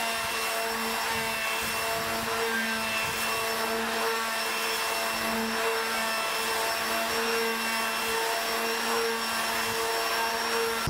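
Electric random orbital sander running steadily with a constant motor hum while sanding down the epoxy filler on a fibreglass rudder.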